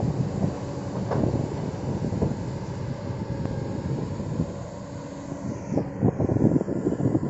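Kobelco SK200-10 excavator's diesel engine running steadily, with scattered clanks and knocks that grow thicker and louder near the end.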